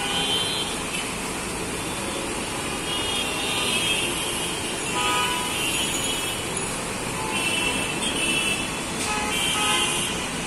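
Busy city road traffic, a steady rush of engines and tyres, with vehicle horns honking about five times, short and high-pitched.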